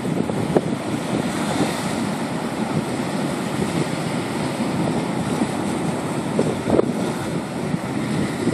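Ocean surf breaking against rocks and washing into a cove, a steady churning wash of waves, with wind buffeting the phone's microphone.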